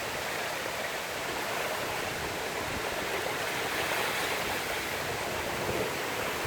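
Strong storm wind blowing steadily, an even rushing noise without a break.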